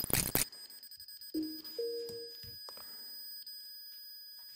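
A short electronic two-note chime about a second and a half in, a lower note joined by a higher one: a Bluetooth device signalling that it has connected. A brief burst of handling noise comes at the very start, and a faint steady high electronic whine runs underneath.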